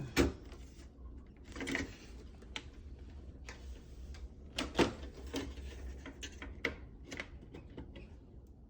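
Irregular sharp plastic clicks and knocks as a Samsung dishwasher's top control panel is worked loose from its clips, the loudest just after the start and again a little before the middle.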